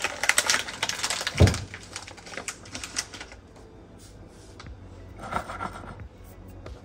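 A rapid run of clicks and taps for about three seconds, with a single low thump about one and a half seconds in, then only faint scattered handling sounds.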